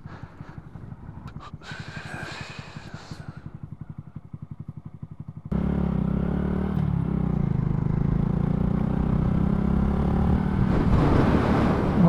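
Honda Grom's 125 cc single-cylinder engine idling with an even, rapid pulse. About five seconds in it switches abruptly to the bike running along at road speed, louder and steady, with wind rushing over the microphone that grows stronger near the end.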